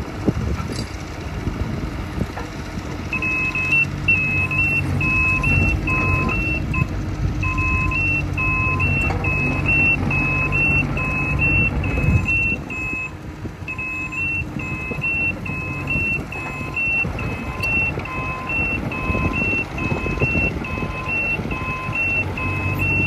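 Kubota KX040-4 mini excavator's diesel engine running steadily while the machine travels, with its travel alarm beeping about twice a second from a few seconds in, pausing briefly near the middle.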